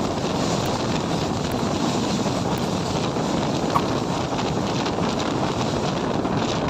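Wind rushing over the microphone held out of a moving passenger train, with the steady running rumble of the train and a second train passing close on the next track. A short sharp blip sounds nearly four seconds in.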